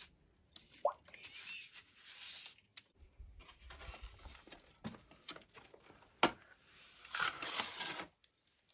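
Steel trowel scooping and scraping mortar and pressing it onto a rough stone and brick wall, in short gritty scrapes with a sharp tap about six seconds in and a longer scrape near the end.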